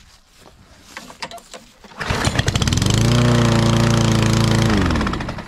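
Small four-stroke push-mower engine on a freshly cleaned carburetor catching about two seconds in and running at a steady governed speed. Near the end it winds down in pitch and stops.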